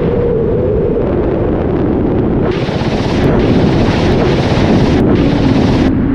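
Ka-52 attack helicopter heard from inside the cockpit in flight: steady engine and rotor noise with wind rush and a whining tone. From about two and a half seconds in until near the end, a harsher rushing hiss joins it.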